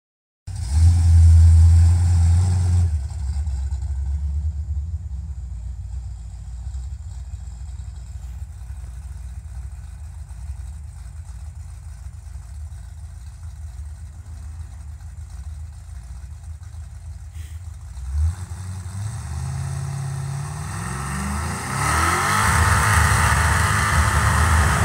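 Supercharged Ford 5.0 Mustang V8 engine: a loud rev at the start, then running steadily for a long stretch. From about 18 s in it revs up with rising pitch, and near the end it is held at high revs while the rear tyres spin and screech in a burnout.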